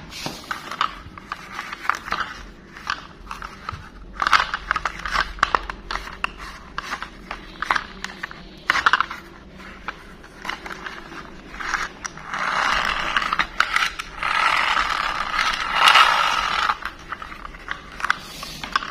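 A hard plastic toy car being handled: many clicks and knocks of plastic parts, with two longer stretches of scraping in the second half.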